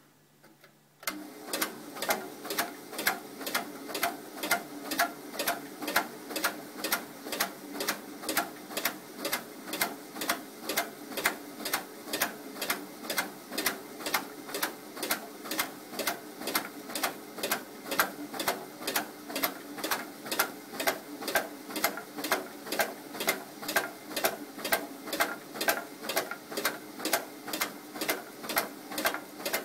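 AMS ATS-12 tabbing machine starting up about a second in and running steadily, feeding mailing pieces through. Its motor hums under an even clicking of about two and a half clicks a second.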